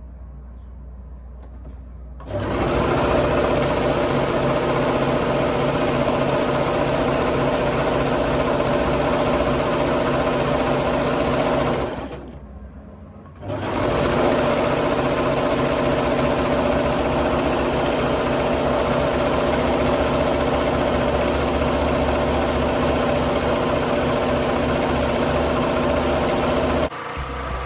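Electric sewing machine running at a steady speed for about ten seconds, stopping briefly, then running again for roughly thirteen seconds. There is a low hum before it starts.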